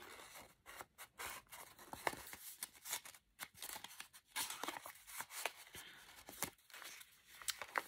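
Paper rustling and scraping as a small kraft-paper envelope is handled and a cardstock tag is slid out of it and back in, a run of irregular crisp rustles and small ticks.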